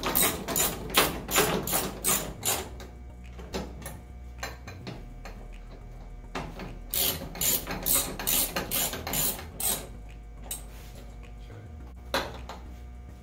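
Hand ratchet clicking in two runs of back-and-forth strokes, about three or four clicks a second, with a pause of a few seconds between them, as the side-mirror arm's mounting screws are tightened into the backing plate inside the truck door.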